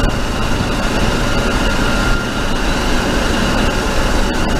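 Engine and road noise inside the cab of an old one-ton pickup truck under way, a loud, steady drone.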